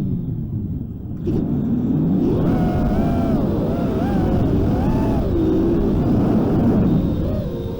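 FPV freestyle quadcopter's motors whining, the pitch rising and falling with throttle, over heavy wind rumble. The motors are near idle at the start and surge back up about a second in.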